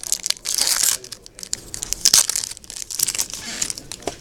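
A foil Yu-Gi-Oh! Duel Power booster pack wrapper crinkling and tearing as it is ripped open, in three loud rustling bursts with small clicks between.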